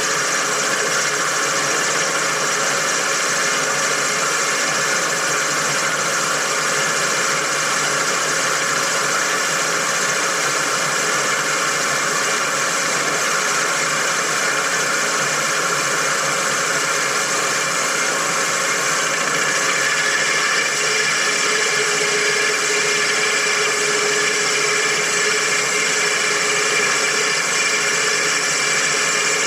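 Machine-shop lathe running steadily while boring out the throat of a Nathan K-5 train horn bell to a big bore. A steady higher tone joins about twenty seconds in.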